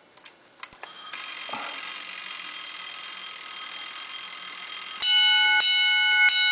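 Vintage Autocall electric fire alarm bells set off by the pulled chain, showing that the decades-old system still works. After a few clicks, a fainter steady bell ring sets in about a second in. About five seconds in, a loud 10-inch single-stroke bell starts striking roughly every two-thirds of a second, each stroke ringing on into the next.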